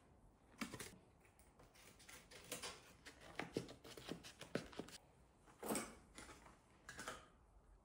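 Faint, scattered crinkles and clicks of a clear plastic blister pack being handled and cut with scissors.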